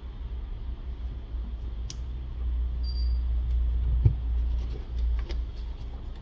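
Light handling sounds of a plastic opening pick worked under the edge of a Samsung Galaxy S23 Plus glass back, against strong, never-opened double-sided tape. A few small clicks and a brief high squeak about three seconds in sit over a low steady rumble.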